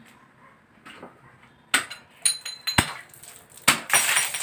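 A glass bottle struck hard with the edge of a bare hand: four sharp knocks with a glassy ring, a second or so apart, then a dense clatter of glass near the end.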